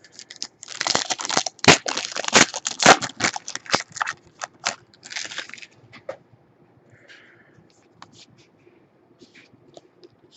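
A trading-card pack's plastic wrapper being torn open and crumpled: a few seconds of dense crinkling and crackling with sharp ticks, then scattered faint clicks of cards being handled.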